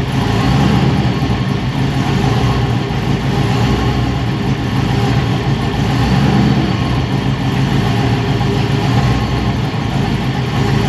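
Chevrolet Silverado's V8, newly fitted with an LT4 supercharger and an aftermarket cam, idling steadily with the hood open. It runs nice and quiet, with no valve train noise.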